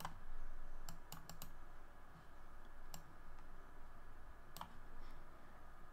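Quiet, scattered clicks from working a computer's mouse and keys: single clicks here and there, with a quick run of three or four about a second in.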